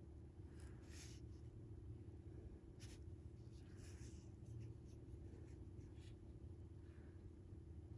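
Near silence: a few faint, short scratchy rustles of fingers handling and pulling braided fishing line, over a low steady hum.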